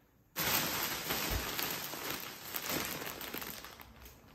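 Clear plastic bag crinkling and rustling as hands open it and reach inside. It starts abruptly about a third of a second in and tapers off near the end.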